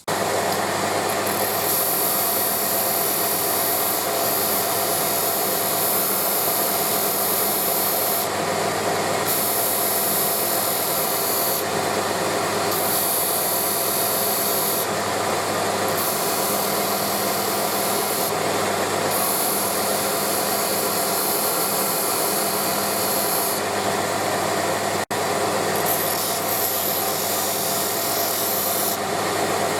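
Electric disc sander with 240-grit paper running steadily, polishing drill bits held in a jig. A high grinding hiss swells and drops every few seconds as the bits are pressed against the disc and lifted off, over a constant motor hum.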